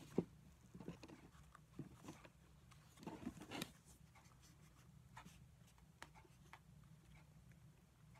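Faint rustling and small clicks of basket reeds being bent over and tucked into the weave by hand, with a sharper click just after the start and a longer rustle about three seconds in.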